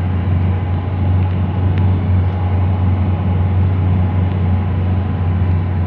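Steady low drone of a running motor engine, even in level throughout.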